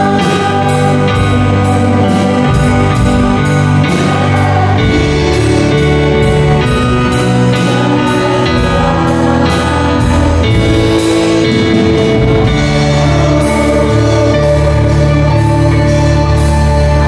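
Live praise-and-worship band music led by an electronic keyboard playing sustained chords, with singing and a steady beat of about two ticks a second.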